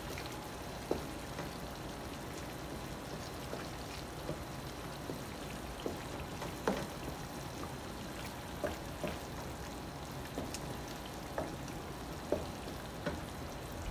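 Tomato pasta sauce sizzling and simmering in a pan: a steady hiss with scattered small pops and ticks.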